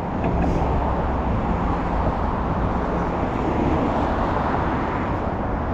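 Street traffic: car and truck engines running past the intersection in a steady, fairly loud hum.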